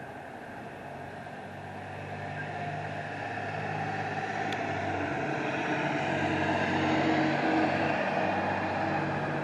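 A motor vehicle's engine passing by, growing louder over several seconds and easing off near the end.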